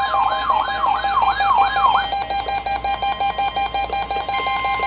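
Several weather alert radios sounding their alarms at once for a required weekly test: a warbling siren that stops about two seconds in, a rapid beeping of about four a second that keeps going, and a steady high tone at the start that returns near the end.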